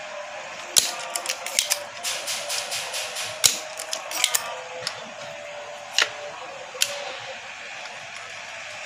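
Spring-loaded desoldering pump (solder sucker) being cocked and fired on the solder joints of a small electrolytic capacitor on a TV power board: a series of sharp clicks and snaps, the loudest about a second in, at about three and a half seconds and at six seconds.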